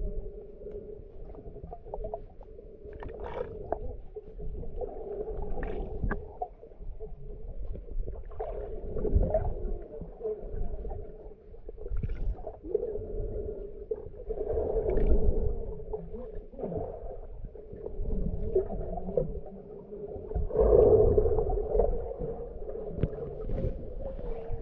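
Muffled underwater sound picked up by a camera held below the surface while swimming: water sloshing and bubbling over the microphone in irregular swells, over a steady low hum.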